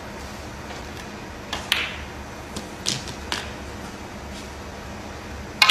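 Snooker balls clicking as shots are played: a few sharp clicks of the cue tip on the cue ball and balls knocking together, over the steady hush of the arena, with the loudest click near the end.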